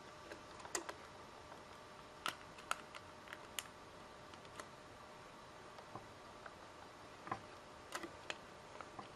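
Irregular light clicks and taps of hands fitting parts inside an opened PS3 Slim console, about a dozen scattered through, over a faint steady hum.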